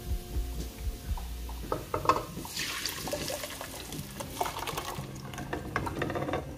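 Blended tomato purée poured from a bowl into a pan of hot olive oil and chopped onion, the pour and its sizzle filling in from about two and a half seconds in.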